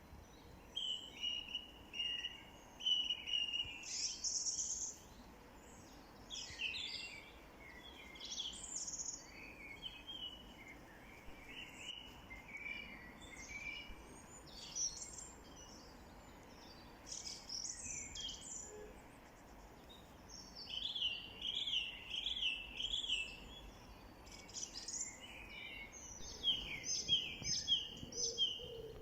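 Several small songbirds singing and calling, with many short, high chirps and trills over a faint steady background; a quick run of repeated rising notes comes about two-thirds of the way through.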